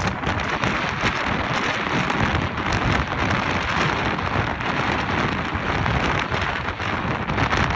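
Aerosol spray paint can hissing as it paints onto a concrete wall, mixed with wind rumbling on the microphone.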